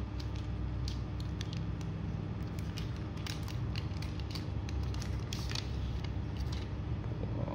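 Paper and plastic packaging crackling and rustling in short bursts as a smartphone is handled and slid out of its printed paper sleeve, over a steady low hum.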